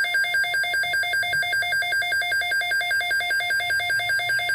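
Electronic alert tone of a simulated weather-radio emergency broadcast: a steady-pitched beep pulsing rapidly, about eight pulses a second, like a trilling phone ring.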